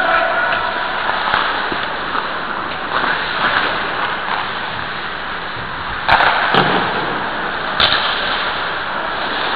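Ice hockey game heard from a goalie's helmet camera: a steady scraping hiss with three sharp knocks, two close together about six seconds in and one more near eight seconds.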